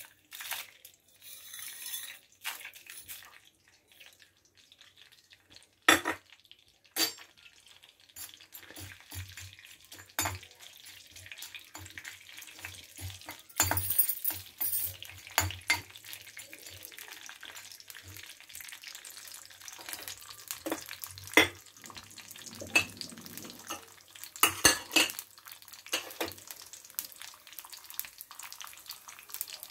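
Metal spoon scraping and clinking against a metal kadai while stirring dried red chillies, dals and seeds frying in a little oil, with a soft sizzle underneath. The knocks of the spoon on the pan come irregularly over the sizzle.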